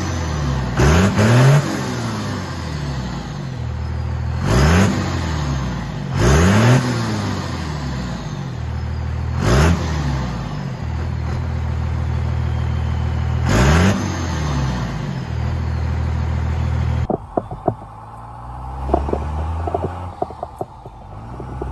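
Dodge Ram's 5.9 Cummins turbo-diesel idling roughly and being free-revved in quick blips, about six times, puffing smoke after a fresh tune; the truck has a large exhaust leak. Near the end the sound switches to inside the cab as it drives, the engine quieter, with scattered clicks.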